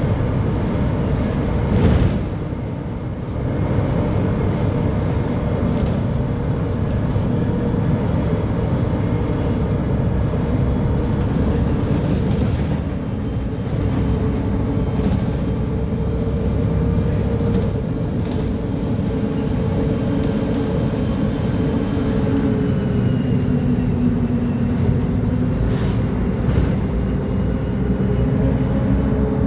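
Mercedes-Benz O500UDA bi-articulated bus's diesel engine running with a steady drone and a whine that wavers in pitch through the second half. A brief thump about two seconds in.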